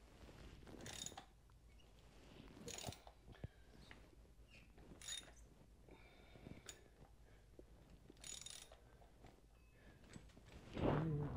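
A hand ratchet clicking in about five short bursts, a second or two apart, as it is swung back and forth on a cap-type oil filter wrench to loosen a tight oil filter on a Harley-Davidson Sportster engine. A louder brief sound comes near the end.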